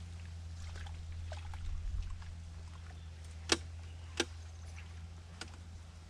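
A steady low hum with scattered faint clicks and knocks; two sharp clicks, a little under a second apart, are the loudest sounds.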